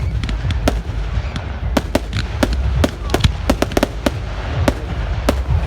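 Fireworks going off: a rapid, irregular series of sharp cracks and bangs, thickest in the middle stretch, over a steady low rumble.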